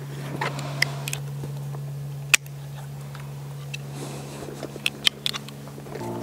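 Scattered sharp clicks and light rustles of hands handling climbing-rose canes and twine and of footsteps moving off, over a steady low hum. One click about two seconds in is the loudest.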